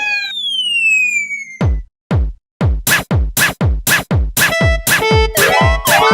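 Electronic music: a falling synth sweep, then a drum-machine kick beat that speeds up to about four hits a second, with short beeping synth notes joining about halfway through.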